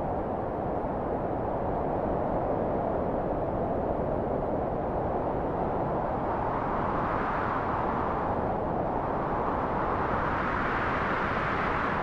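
Typhoon wind blowing hard and steadily, swelling in gusts about seven seconds in and again near the end.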